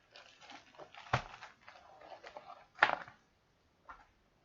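Packaging being handled: rustling and crinkling, with two sharp knocks, one about a second in and a louder one just before the three-second mark.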